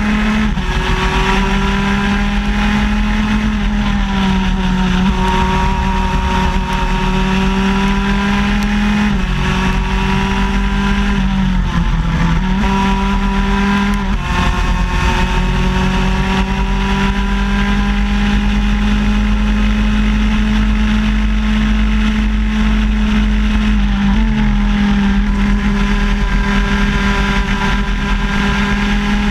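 Shifter kart's two-stroke engine, heard from onboard the kart, running hard at speed. Its pitch holds mostly steady and dips briefly and recovers about five times as the kart goes through the corners.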